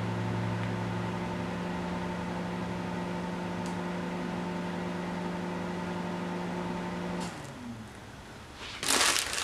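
Steady electrical hum of a running appliance, cutting off abruptly about seven seconds in. Near the end there is a brief rustle of a plastic sandwich bag.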